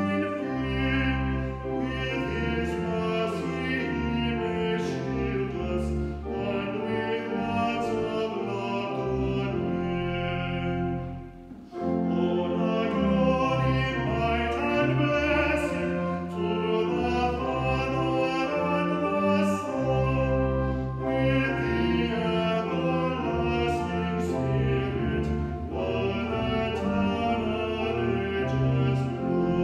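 A hymn sung by a man's voice close to the microphone, with organ accompaniment, in sustained notes. The music breaks off briefly about twelve seconds in, then resumes.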